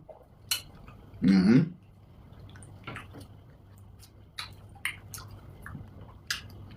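Eating sounds: scattered wet clicks, smacks and squishes of swallow being eaten and chewed, with a brief voice sound about a second and a half in.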